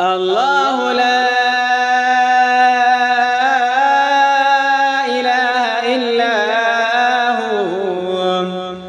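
Quran recitation: a single voice chanting one long, drawn-out melodic phrase. It slides up at the start, holds the note with ornamental turns and falls away near the end.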